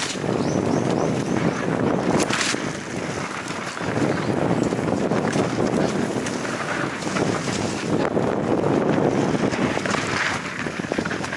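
Wind buffeting the microphone of a camera on a mountain bike riding downhill on a dirt singletrack, with the steady rush of tyres on dirt and many small knocks and rattles from the bike over the rough ground, and a brief sharper noise about two seconds in.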